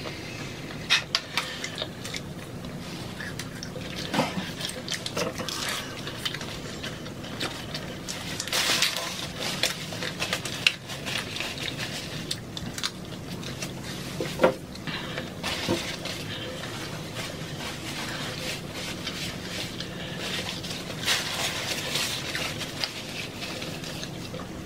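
Eating sounds from people eating tacos: chewing and mouth noises with scattered small clicks and rustles.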